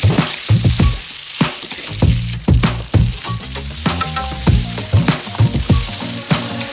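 Chopped onions and green bell pepper sizzling in hot oil in a kadai, stirred with a spatula that scrapes and knocks against the pan about twice a second.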